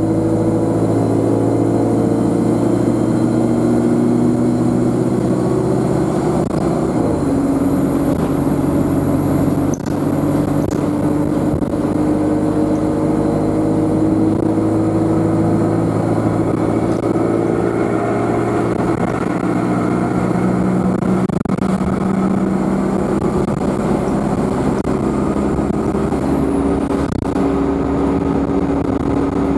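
Alexander Dennis Enviro200 bus engine running under way, with a high-pitched turbocharger whine that slowly climbs in pitch and drops away sharply twice, about seven seconds in and near the end.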